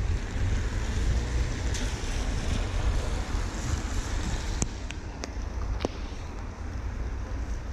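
Wind buffeting a GoPro's microphone, a steady low rumble under an even rushing hiss of rain and street noise. A few sharp ticks come a little past halfway.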